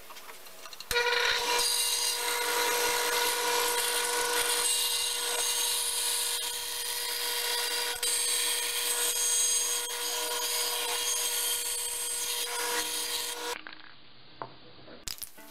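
Band saw running and resawing a maple block into thin strips: a steady whine with the rasp of the blade cutting wood. It starts abruptly about a second in and cuts off shortly before the end.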